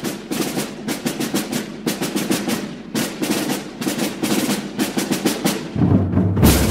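Snare drums playing a fast marching cadence of rolls and beats, with a deeper bass part coming in near the end.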